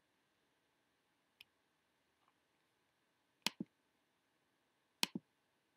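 Computer mouse button clicks: a faint click about a second and a half in, then two louder clicks about a second and a half apart, each a sharp press followed at once by the release.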